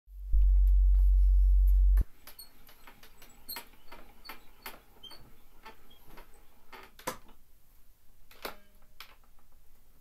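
Victrola VV2-40 portable gramophone being wound by its side crank, a run of light clicks about three a second from the spring motor's winding gear. It opens with a loud low hum that cuts off suddenly after under two seconds.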